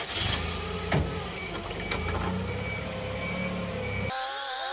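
Engine of the machine lifting the dozer axle, running steadily just after starting, with a single knock about a second in. About four seconds in the engine sound cuts off and background music takes over.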